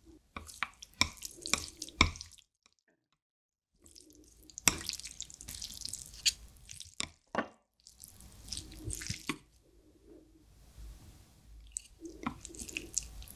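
Wooden chopsticks mixing sauce-coated Buldak fire noodles in a tray: bursts of wet clicks and slaps. A few sharp clinks open it, followed by a pause of about a second and a half.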